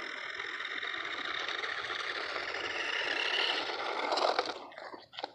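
Toy remote-control car running, its small electric motor whirring and wheels scraping, steady for about four and a half seconds and then cutting off, with a few short clicks just after.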